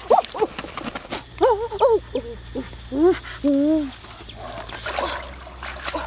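Domestic ducks being grabbed and handled: a string of short rising-and-falling calls between about one and four seconds in, with wing flapping and rustling.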